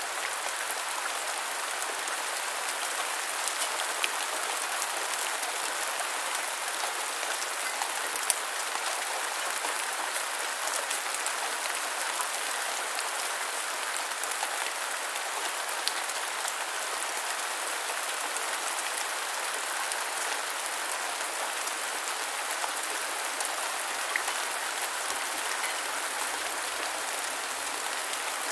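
Steady light rain falling on a surface: an even hiss with scattered drops ticking through it.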